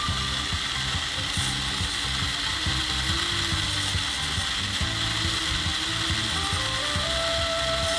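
Small electric motor driving the spur-gear reduction and universal-jointed driveshaft of a homemade RC truck chassis, running steadily with a rapid clatter of gear teeth.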